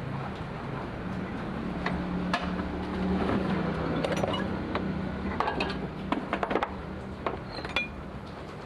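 Light metallic clinks and taps of hand tools against metal parts, coming in a quick cluster in the second half, over a steady low motor hum.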